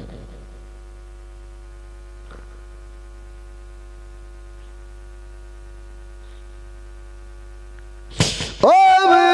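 Steady electrical hum from the microphone's public-address system. Near the end a man's voice breaks in loudly through the microphone with a long, wavering wailing cry.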